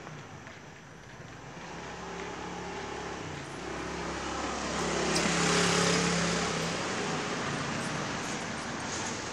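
Road traffic with a motor vehicle passing close by. Its engine hum and tyre noise build to a peak about five to six seconds in, then fade.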